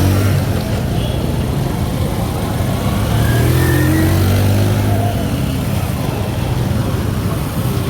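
Street traffic with a motor vehicle's engine running close by. It swells about three seconds in, rising a little in pitch, then eases off again.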